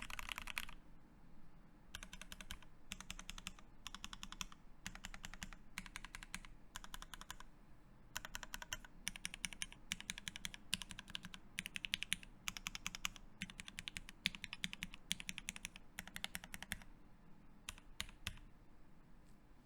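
Typing on a Keycult No.1/65 mechanical keyboard with lubed Tealios linear switches in an aluminium plate. Quick runs of keystrokes come with short pauses between them. The typing stops about seventeen seconds in, and a few single key presses follow near the end.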